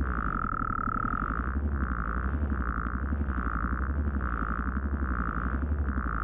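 Synthesized sound effect: a steady low drone with a fast rattling pulse, under a higher tone that sounds in about seven repeated pulses.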